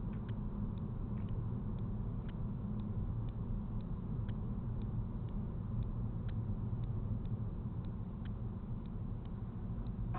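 Car driving on a city street, heard from inside the cabin: a steady low road and engine rumble, with faint ticks about twice a second.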